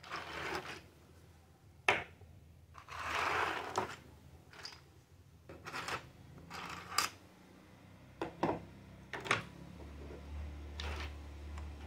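Small plastic toy kitchen pieces handled and set down on a table: a series of light clicks and clatters, with a couple of short rustling scrapes as pieces are slid about.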